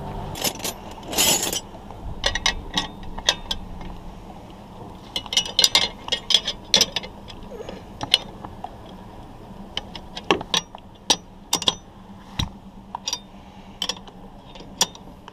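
Wrenches clicking and clinking on the stainless-steel bolts and fitting at the base of a sailboat's headstay as the bolts are undone: sharp, irregular metallic clicks, bunched in quick runs and then coming more sparsely.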